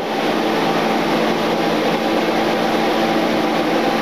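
Steady fan noise: an even hiss with a low, constant hum underneath.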